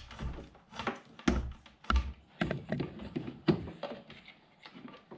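Irregular clicking, tapping and a few dull knocks of an electrical wire and its cable being pushed and fed through the lower cowling of a 25 hp Yamaha outboard, against the plastic and metal of the engine.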